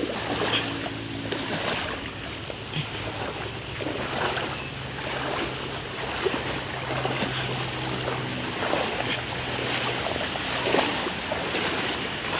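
Feet wading and splashing through shallow, muddy creek water, with wind buffeting the microphone. A steady low hum runs under it and fades out about nine seconds in.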